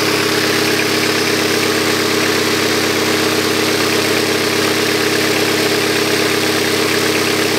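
2.2-litre Ecotec inline-four engine idling steadily with its exhaust not yet hooked up, giving a loud, raw note that sounds mean.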